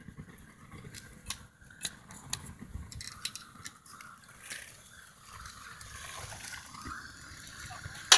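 Quiet handling noise from working on torch-down roofing membrane: scattered light clicks and rustles, with a faint hiss building a few seconds in and one sharp click right at the end.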